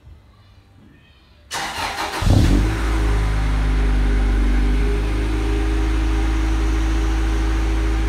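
Honda Civic EG's engine started about one and a half seconds in: a short burst of cranking, then it catches with a brief rev and settles into a steady idle through its aftermarket exhaust.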